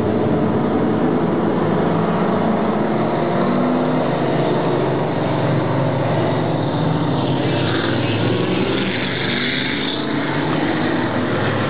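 Stock cars racing on an oval track: several race-car engines running hard together in a loud, steady drone, the pitch rising and falling as cars go by.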